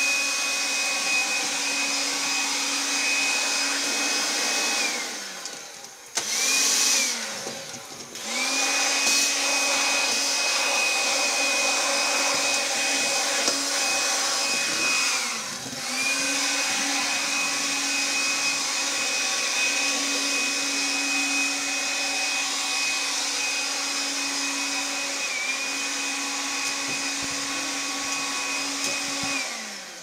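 Makita CL140FD cordless vacuum cleaner running with a steady high-pitched motor whine and rush of air. It is switched off and on again several times, its whine dying away as it stops and rising as it restarts. It stops about five seconds in, runs again briefly, restarts near nine seconds, cuts out briefly around fifteen seconds, and winds down at the end.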